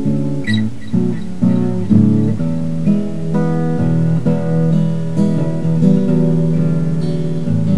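Acoustic guitar playing an instrumental break, strummed and picked chords with a new chord struck about every half second to second.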